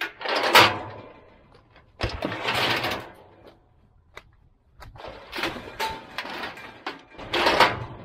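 Steel head gate of a cattle chute clanging and rattling as it is swung open to let a calf out and caught shut on the next calf, several separate metal clanks with short quiet gaps, the loudest near the start and near the end.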